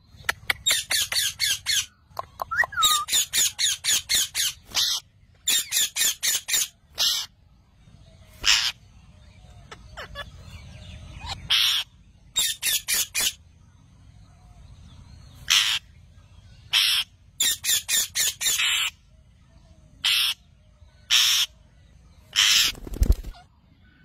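Indian ringneck parakeets screeching: fast runs of short, harsh calls, several a second, alternating with single longer squawks, with short gaps in between.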